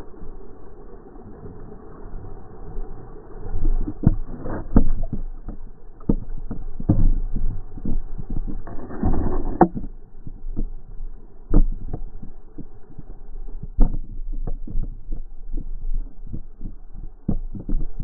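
Muffled, irregular thumps and knocks over a low rumble, typical of a small boat trolling through choppy water as waves slap the hull.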